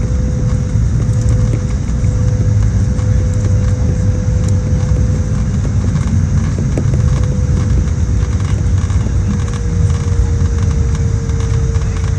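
Airliner cabin noise: a steady low rumble of engines and airflow, with one engine tone that slowly sinks in pitch from about halfway through.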